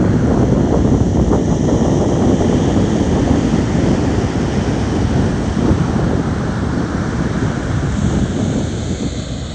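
Wind buffeting the microphone by open water: a loud, steady, low rumbling noise that eases slightly near the end.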